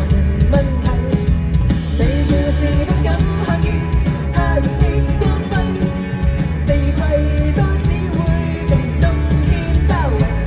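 Band playing a rock song without sung lyrics, loud and steady, with a strong low beat and a wavering melody line over it.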